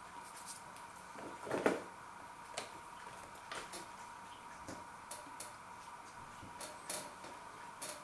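Light clicks and rustles of a cardboard food box being picked up and handled, with one louder handling noise about a second and a half in. A faint steady high hum sits underneath.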